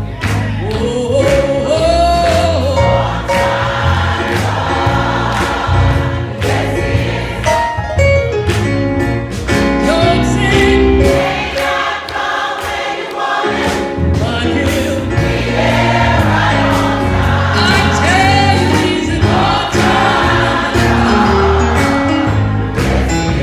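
Gospel choir singing in harmony over an instrumental backing with a steady beat and a bass line. The bass drops out briefly about halfway through, then returns.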